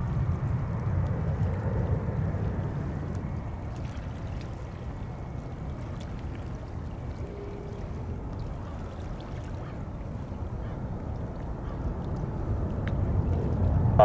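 Distant jet engine rumble of an Alaska Airlines jetliner taking off and climbing out: a steady low rumble that eases through the middle and swells again near the end.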